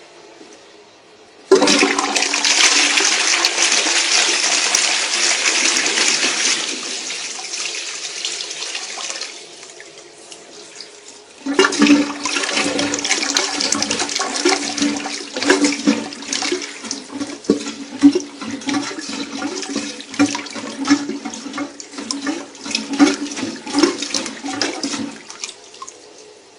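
Armitage Shanks Sandringham toilet flushing: a sudden rush of water about a second and a half in, dying away after several seconds. Then comes a second spell of running water with a steady hum and irregular gurgles, typical of the cistern refilling, which stops near the end.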